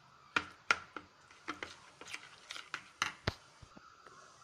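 Stainless steel spoon clicking and scraping against a plastic bowl while stirring semolina batter, about ten irregular taps.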